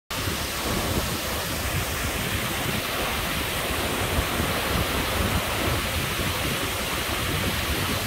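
Tall mountain waterfall cascading down rock slabs: a steady, even rush of falling water.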